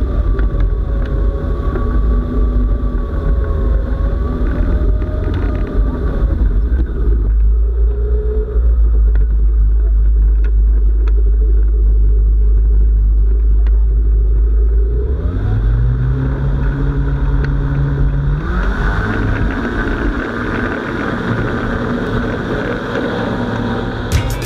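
Ultralight trike's engine and pusher propeller running over a heavy low rumble while it rolls on grass. About fifteen seconds in the engine revs up, its pitch rising in two steps, as the trike speeds up along the grass runway.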